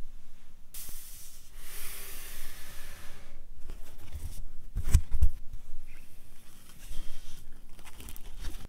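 Foam packaging inserts and a cardboard box being handled: a long scraping rustle about a second in, a few dull thumps around the middle, then more rustling and light knocks near the end.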